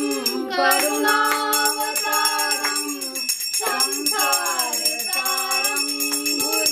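Hindu devotional aarti song: a voice sings a slow melody of held, gliding notes over music, with bells jingling in a steady rhythm.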